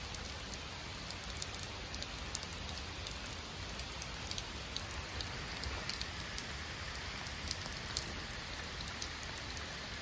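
Steady rain falling on a wet rock slab and the trees around it: an even hiss with scattered sharp taps of single drops.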